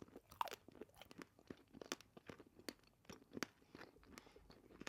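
Crunching and chewing of a homemade beeswax candy shell as its thick bottom piece is bitten through: sharp, irregular crunches, several a second.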